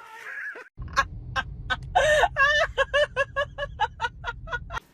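An animal calling in a quick run of short pitched calls, about five or six a second, with one longer call about two seconds in, over a low rumble. It all cuts off suddenly near the end.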